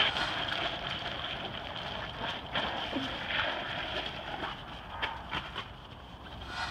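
Steady outdoor hiss with a few short scuffs.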